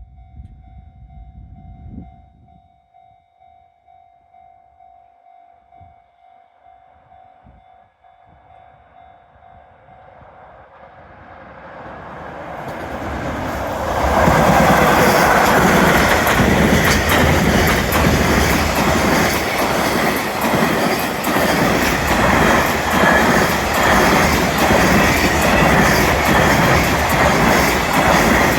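Freight train hauled by an EF66 electric locomotive approaching and passing over a level crossing. At first only the faint, steady tones of the crossing's warning bell are heard. The train noise swells from about ten seconds in and turns loud at about fourteen seconds, with the rapid, regular clatter of the wagons' wheels passing over the rail joints.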